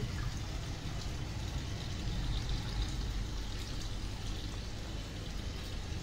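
Water pouring steadily into the tub of a Samsung 8 kg EcoBubble top-load washing machine as it fills for the rinse cycle.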